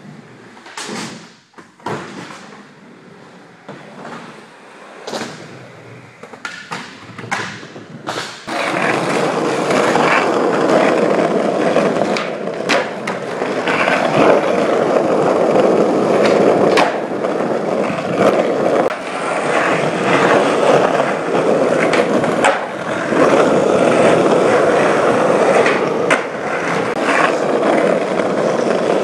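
Skateboard sounds. For the first eight seconds or so there are separate sharp clacks of the board hitting the floor and ramps. Then, about eight seconds in, the loud steady rolling of skateboard wheels over concrete begins and runs on, with occasional clacks of the board over it.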